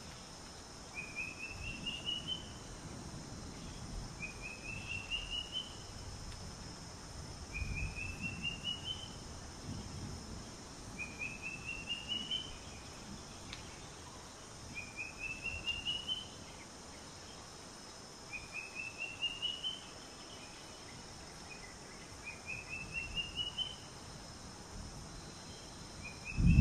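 Outdoor nature ambience: a chirping trill of quick notes rising in pitch, about a second long, repeating evenly every three to four seconds over a steady high-pitched insect drone.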